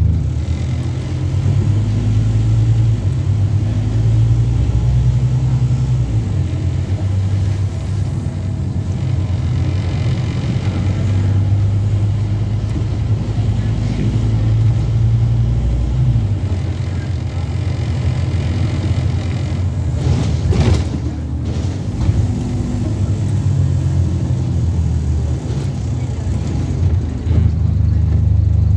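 Scania N230UB OmniCity bus's diesel engine and drivetrain running while the bus is under way, heard from inside the cabin near the rear. The engine note pulls and eases off a couple of times, with a brief clatter about twenty seconds in.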